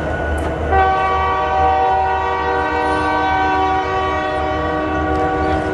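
A locomotive's multi-note chime whistle sounds one long, steady blast. It starts sharply about a second in and holds for nearly five seconds, over the low rumble of the slowly passing train.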